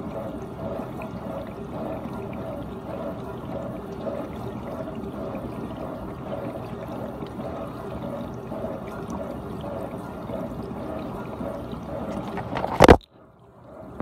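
GE dishwasher washing, water spraying and swishing with a pulse about twice a second. Near the end a single loud thump cuts across it, and the water sound stops.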